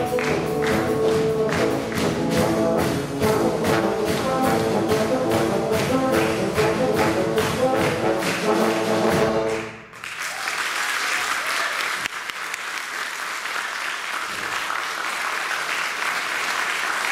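Low brass quartet of tubas and euphoniums with a drum kit playing to a steady beat, ending on a sudden cutoff just under ten seconds in. Audience applause follows.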